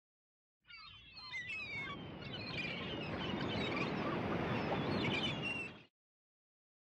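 Birds calling over a steady rushing background noise, fading in about a second in and cutting off shortly before the end.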